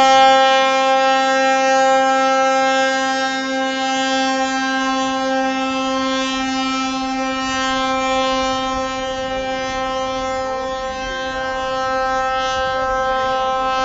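A ship's horn sounding one long, unbroken blast at a steady pitch, the customary salute as a ship slides down to the sea at its launch.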